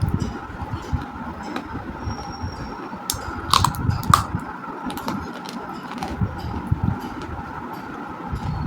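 Baked clay, roasted multani mitti (Fuller's earth) chunks, being bitten and chewed close to the microphone. Irregular sharp crunches and crackles sound over dull chewing thuds, with the loudest crunches around the middle. A steady hum runs underneath.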